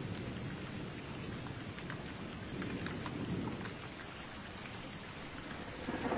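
Steady rain with scattered drop ticks and low thunder rumbles, swelling about halfway through and again near the end.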